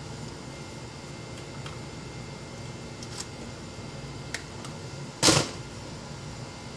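Plastic breast-pump and bottle parts being handled and set down in a plastic basin: a few light clicks, then one louder, brief clatter about five seconds in, over a low steady hum.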